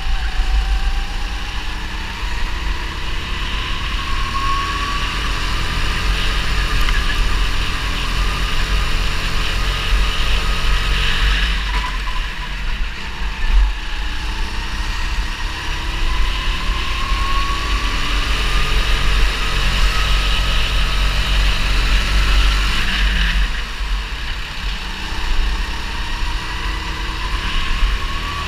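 270 cc go-kart engine heard from on board at racing speed: its pitch climbs slowly as the kart accelerates, then drops sharply when the throttle is lifted for a corner, twice, over a constant low rumble.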